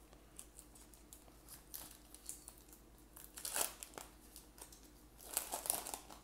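Foil wrapper of a Topps baseball card pack crinkling and tearing as it is pulled open by hand. Light rustling gives way to two louder spells of crackling, one about halfway through and one near the end.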